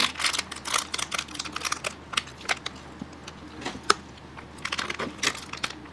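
People eating: a quick, irregular run of small clicks and smacks as forks and spoons dig into cake and ice cream and food is eaten off them.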